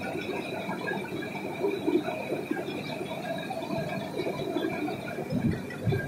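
Processing-plant machinery running: a steady mechanical hum carrying several constant whining tones, with irregular rattling and knocks underneath.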